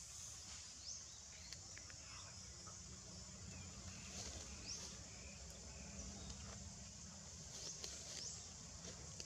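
Faint outdoor tropical-forest ambience: a steady high hum of insects with several short rising bird or insect chirps, over a faint low rumble.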